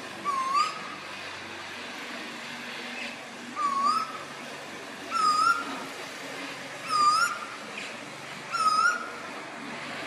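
Male Pacific koel (storm bird) calling: five short upswept calls, each dipping then rising in pitch, about a second and a half apart.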